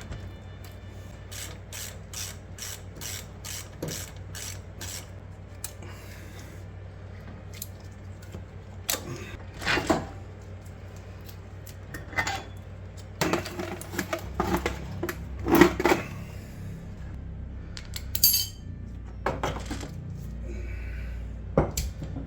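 Metal hand tools and sockets clinking and clanking while being handled on a car's front end. A run of evenly spaced light clicks comes early on, followed by several louder, irregular metal knocks.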